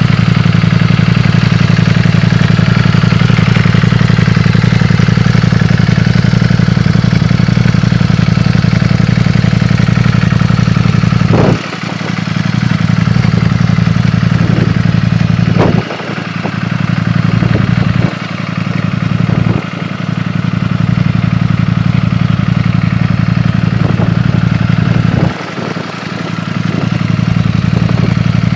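Ducati Panigale V4's V4 engine idling steadily. Its level drops suddenly five times and recovers over a second or two each time.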